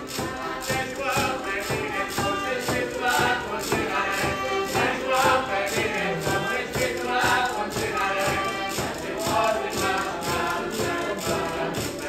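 Live Madeiran folk band playing a dance tune: a drum keeps a steady beat under strummed strings and group singing.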